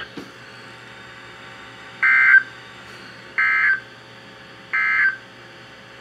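Emergency Alert System end-of-message data bursts from NOAA Weather Radio, played through a Midland weather radio's speaker: three short, identical buzzy digital bursts a little over a second apart, over a faint steady hiss. They mark the end of the alert message.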